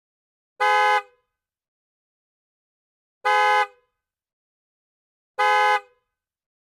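Volkswagen Golf Mk7 car horn sounding three short, identical blasts at uneven intervals. The first comes just over half a second in, the next about two and a half seconds later, and the last about two seconds after that.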